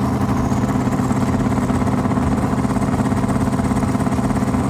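Twin-turbo Camaro V8 held on the two-step rev limiter at about 3,100 rpm against the foot brake, a steady, choppy stutter at one fixed pitch as boost builds before the launch.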